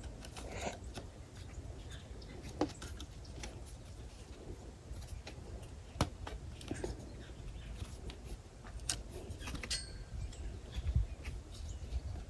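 Scattered light clicks and taps of small metal engine parts being handled and fitted by hand, over a low steady hum.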